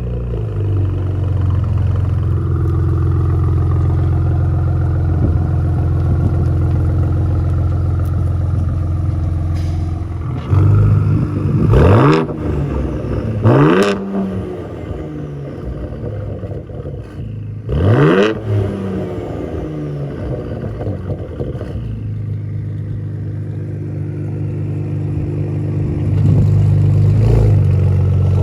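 Ford Explorer ST's twin-turbo V6 running through an MRT H-pipe and axle-back exhaust. It holds a steady note, is revved sharply three times (each rev rising quickly and dropping back), then settles into a steady, louder note near the end.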